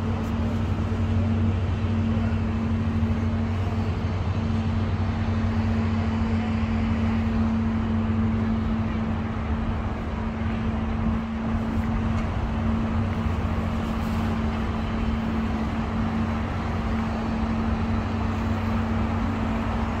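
Steady outdoor urban background noise with a constant low hum.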